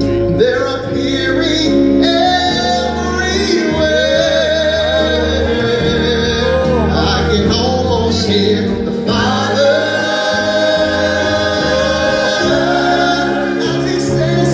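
Live gospel praise song: a man sings lead into a microphone, holding long wavering notes, over steady low musical accompaniment with other voices in the mix.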